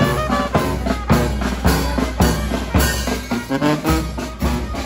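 Street brass band playing a lively tune: trombone, trumpet and sousaphone over a steady bass-drum beat of about two strikes a second.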